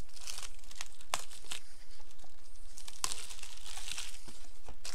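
Paper and cardboard rustling and crinkling as the contents of a trading-card fat pack box are handled, with a few sharp clicks and taps.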